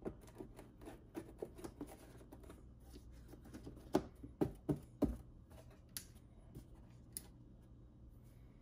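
Small clicks and knocks of a wooden cover panel being set into a hard equipment case and handled, with a cluster of sharper knocks about four to five seconds in.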